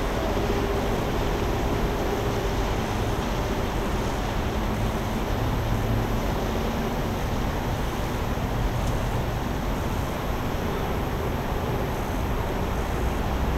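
Steady low rumble and hiss of city and river background noise, with a faint engine drone from a passing yakatabune houseboat.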